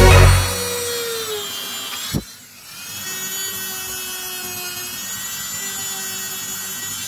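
Small handheld rotary tool running with a high steady whine. Its pitch sags and it cuts out briefly about two seconds in, then it spins back up and runs steadily again.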